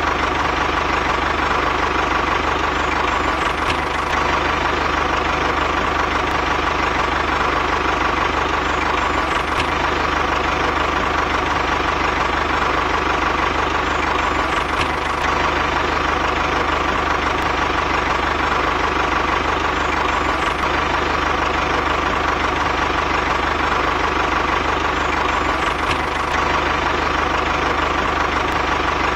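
A steady tractor-style engine idling sound, running unchanged with a light knock. The same pattern comes back about every five and a half seconds, as a looped sound effect does.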